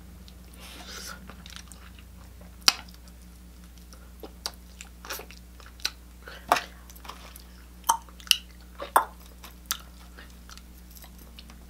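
Close-up chewing and biting of chicken, with scattered wet mouth smacks and clicks, the sharpest about two and a half seconds in.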